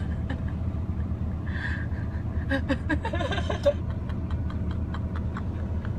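Steady low hum of machinery running, with scattered light clicks and a few brief vocal sounds about halfway through.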